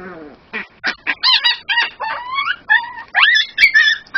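Nine-week-old Miniature Pinscher puppy crying in a rapid string of high-pitched squeals and yelps that swoop up and down in pitch, loud from about a second in. It is protesting at having its harness pulled off over its head.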